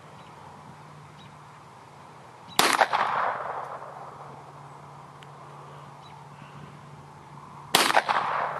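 Two shots from a .25 ACP pistol, about five seconds apart, each a sharp crack with an echo trailing off over about a second.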